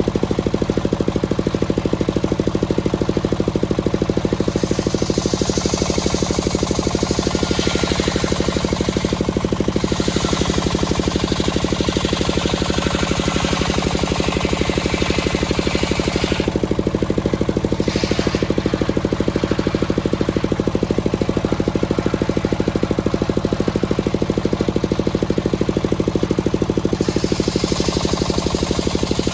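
The engine driving a large circular sawmill blade runs steadily with a fast, even pulsing. The blade ripping through a teak log adds a high, hissing rasp that starts a few seconds in, drops out briefly twice, and comes back strongly near the end.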